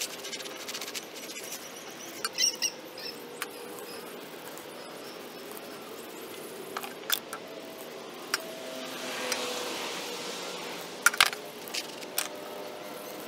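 A brush scrubbing paint stripper into the paint-crusted wooden top of an antique workbench. There are a few sharp clicks and taps along the way, the loudest a quick cluster about eleven seconds in.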